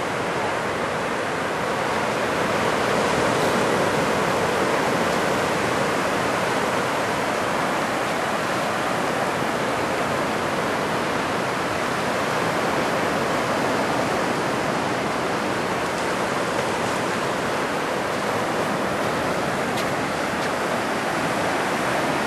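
Ocean surf breaking and washing up a sandy beach: a steady rushing hiss that swells slightly a few seconds in.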